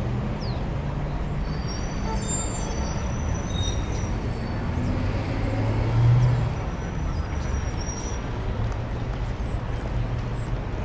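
Car engines running with a steady low rumble as classic cars drive by, one passing louder about six seconds in.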